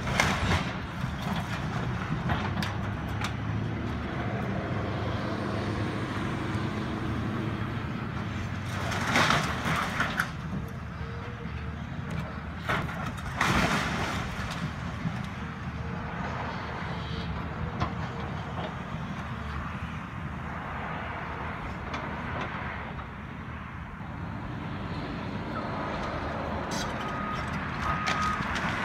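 Caterpillar excavator's diesel engine running steadily under load while it works on a demolished house, with a few louder crunching, clattering bursts about nine and thirteen seconds in. Near the end the machine's travel alarm starts beeping in a steady repeat.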